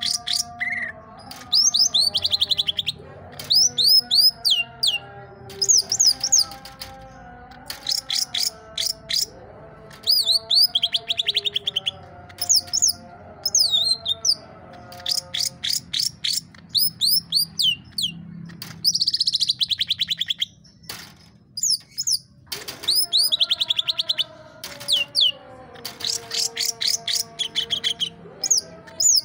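Green leafbird (cucak ijo) singing: repeated runs of fast, high chattering notes, each run lasting about a second or two with short breaks between, over lower warbling notes.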